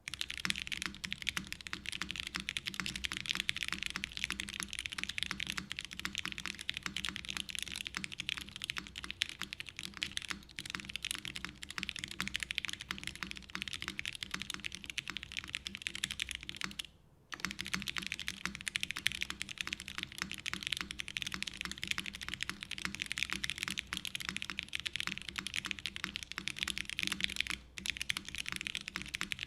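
Custom mechanical keyboard typed on fast: Inks linear switches lubed with 205g0, mounted on a UHMWPE plate and topped with GMK ABS keycaps, giving a dense, continuous run of keystrokes. The typing stops briefly about 17 seconds in, then picks up again.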